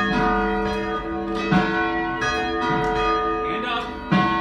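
Church bells ringing, one struck every half second to a second. Each stroke rings on in long overlapping tones.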